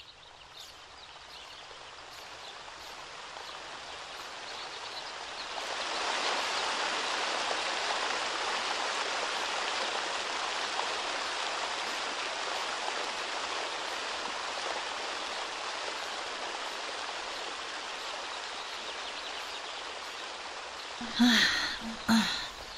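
Steady rush of a fast-flowing river, growing louder over the first six seconds and then running evenly. Near the end come two short, loud pitched sounds, like a voice or animal call.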